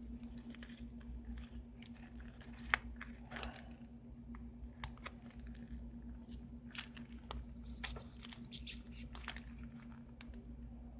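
Shattered iPad digitizer glass crackling as a card is worked under it to pry it off the adhesive: scattered small cracks and clicks, with one sharper snap about three seconds in, over a steady low hum.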